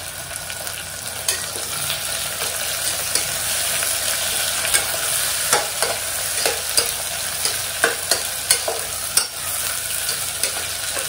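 Chopped onions sizzling as they fry in hot oil in a pressure cooker, stirred with a utensil that clicks and scrapes against the pot now and then.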